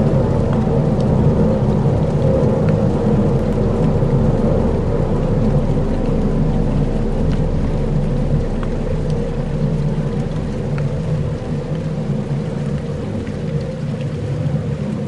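Dark ambient soundscape: a dense, steady low rumbling drone with a few held tones, under a rain-like hiss with scattered faint ticks.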